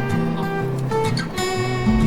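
Background music: strummed acoustic guitar with chords changing every half second or so.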